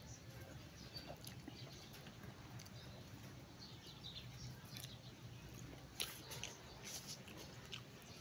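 Quiet close-up chewing of food, with small wet mouth clicks and lip smacks and a few sharper clicks near the end.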